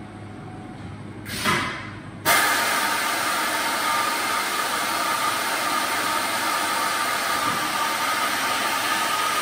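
Spot-welding tip dresser on a pneumatic swivel arm: a short hiss about a second and a half in, then the dresser's cutter motor starts abruptly and runs steadily, a loud even hiss with a faint high hum in it.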